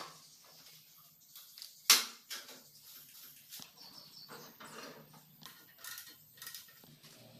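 One sharp knock about two seconds in, with a smaller one at the start, and scattered light clicks and rattles from body panels being handled and fitted against a buggy's steel tube frame.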